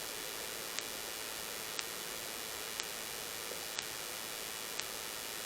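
Steady hiss with a short sharp tick about once a second, evenly spaced.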